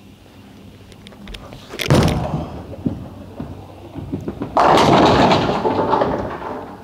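Urethane bowling ball released onto the lane with a thud about two seconds in, rolling down the lane, then hitting the pins a little under three seconds later with a long crash of pins that slowly dies away.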